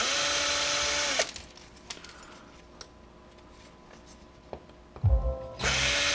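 Electric drill/driver backing screws out of an aluminium heatsink: a steady whine for just over a second at the start, a few small clicks while it stops, then some low knocks and the drill whining again near the end.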